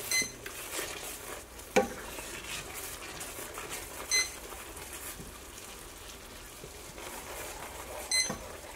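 A digital cooking thermometer left switched on beeps three times, about every four seconds, over a wooden spoon stirring a thick flour-thickened sauce in a frying pan. A single sharp knock comes a little under two seconds in.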